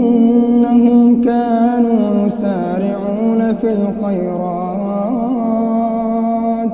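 A man's voice chanting Quran recitation (tajweed) in a slow, drawn-out melody. It holds long notes, with several turns and bends in pitch.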